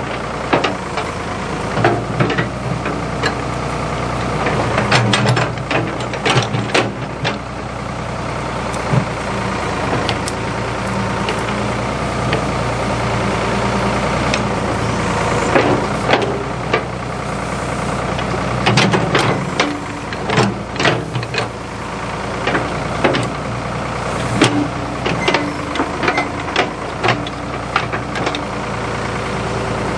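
Ford 555 backhoe engine running steadily under the work, with frequent sharp knocks and clanks over it.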